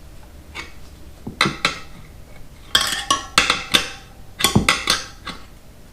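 Metal tire levers clinking and scraping against a motorcycle wheel rim while prying a tire bead over it: a couple of clinks about a second and a half in, then quick clusters of clinks between about 3 and 5 seconds.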